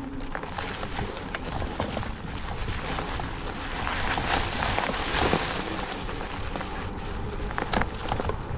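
Off-road wheelchair rolling over a rough forest trail: a steady crunch of tyres on gravel and debris with scattered clicks and knocks, growing a little louder about halfway through.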